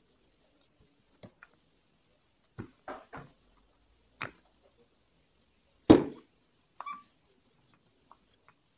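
Brief wooden knocks and taps of a wooden rolling pin handled and set against a wooden board and guide slats while rolling out clay. The knocks come one at a time with quiet between, the loudest about six seconds in.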